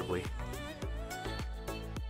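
Background music: a steady beat under a wavering melody line.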